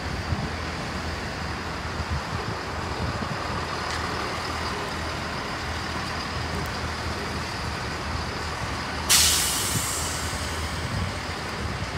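Diesel trains idling with a steady low rumble; about nine seconds in, a sudden loud hiss of compressed air from a train's air brakes, fading away over about a second.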